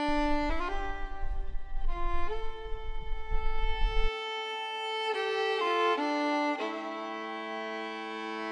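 Background music: a melody on a bowed string instrument, held notes stepping from one pitch to the next every second or so. A low rumble sits under the first half and cuts off suddenly about four seconds in.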